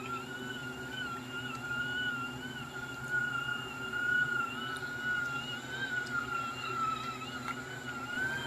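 Mini portable turbine washing machine running submerged in a bucket of water: a steady high motor whine that wavers slightly in pitch, over a low hum.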